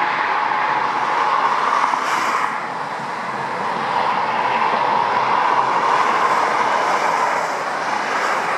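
Jet engines of a Boeing 747 freighter running at taxi power, heard from afar as a steady rushing noise that dips slightly about three seconds in.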